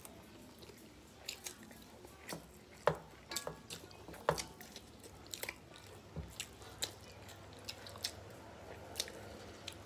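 Close-up eating sounds of two people eating rice and chicken curry by hand: wet chewing and mouth smacks, with irregular sharp clicks and squishes as fingers mix the rice on steel plates.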